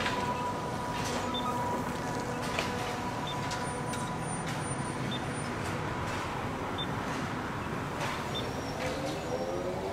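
Škoda 14TrSF electric trolleybus taking a sharp turn and pulling away, its steady electric whine slowly fading under street traffic noise. Near the end a rising whine sets in.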